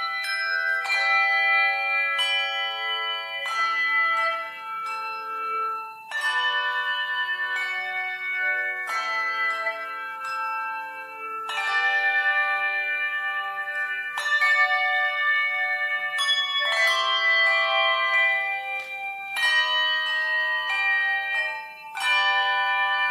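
Slow bell-toned instrumental music: chords struck every one to three seconds, each left to ring on.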